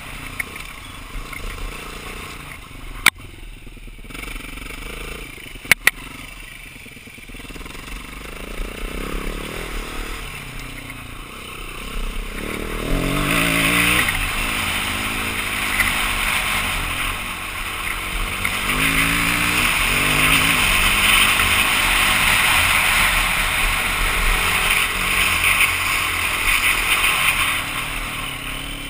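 BMW G450X's single-cylinder four-stroke engine running under way, its revs rising and falling as the throttle is worked, growing louder about halfway through. Two sharp knocks come in the first few seconds.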